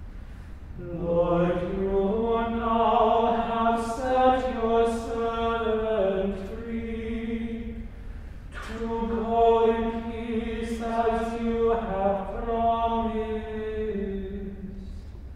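Unaccompanied men's voices singing slow plainsong-style chant in two long phrases of held notes, with a short breath between them near the middle.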